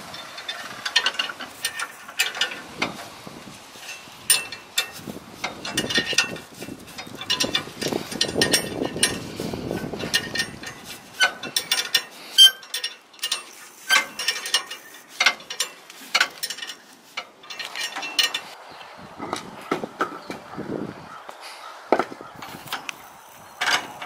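Irregular metal clinks and clanks of hand tools against a steel leaf spring pack and its U-bolts under a small pickup's rear axle, as the leaf spring is being refitted with a leaf moved to the top to lower the truck.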